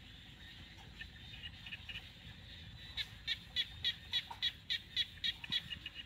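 A small animal's chirping call, repeated in a steady series of short chirps at about three a second, faint at first and louder from about halfway, turning into quicker, softer chirps near the end.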